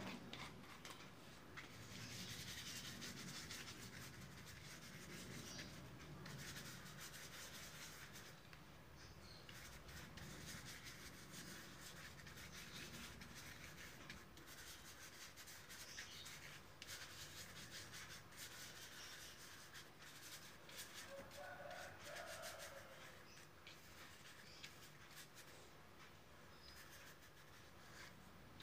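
Flat paintbrush scrubbing and dabbing paint onto a paper surface: a faint, irregular rubbing and scratching of bristles, stroke after stroke.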